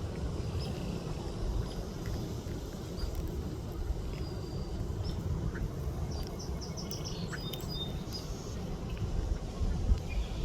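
Small birds chirping now and then, with a quick run of about six short notes a little past the middle, over a steady low outdoor rumble.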